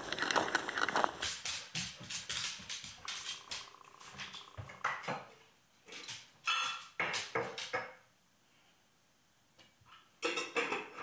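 Footsteps crunching through packed snow, then dishes and utensils clattering at a kitchen counter, with a few short whines from a Labrador retriever.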